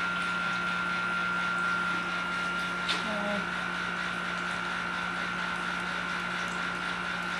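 Steady background hum with an even hiss and a thin high whine over it, and one sharp click about three seconds in.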